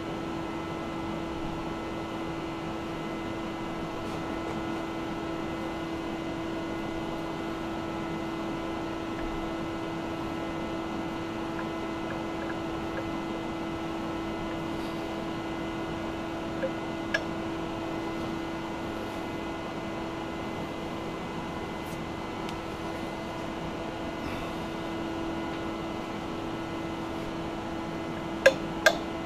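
Steady machine hum with a constant tone from the shop. A few light metal clicks come through it, two a little past halfway and two near the end, as the lathe dog and the threaded workpiece are handled on the lathe.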